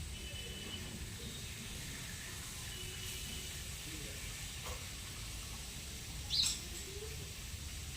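Birds chirping: a few faint high chirps, then one louder, sharp chirp about six and a half seconds in, over a steady background hiss.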